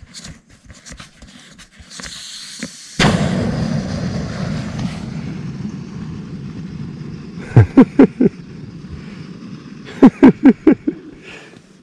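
Inflatable sleeping pad's valve opened: air suddenly rushes out with a loud hiss about three seconds in, fading over several seconds as the pad deflates. Two quick runs of short, sharp squeaks follow near the end.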